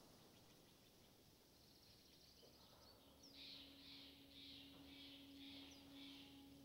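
Near silence: faint outdoor ambience, with soft high chirps repeating about twice a second from about three seconds in over a faint low steady tone.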